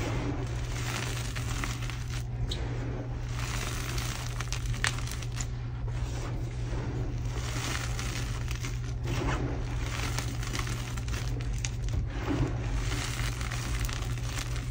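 Handfuls of crushed, dyed gym chalk powder and small chunks being scooped and squeezed in bare hands: a dry, gritty crunching and crumbling, full of small clicks as pieces break, coming in repeated swells with each squeeze.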